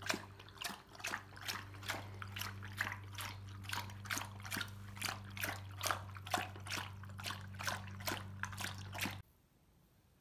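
A dog licking: quick wet laps of the tongue, about three or four a second, over a steady low hum. Both stop abruptly about nine seconds in.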